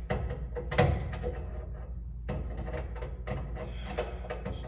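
Scattered clicks, knocks and rattles of metal panel parts and screws being handled and worked loose on the unit, the sharpest knock about a second in, over a steady low hum.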